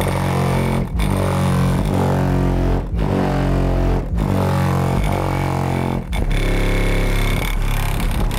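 Bass-heavy music played loud through a car audio system: an Avalanche Audio Mayhem 15-inch subwoofer in a custom box, driven by a Sundown SAZ-3000 amplifier. Deep bass notes dominate, with brief drop-outs between phrases about one, three, four and six seconds in.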